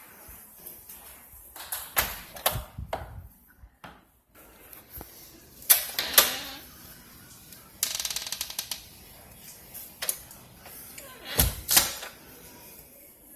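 Scattered handling noises: sharp clicks and knocks at irregular intervals, with a short fast rattle about two-thirds of the way through.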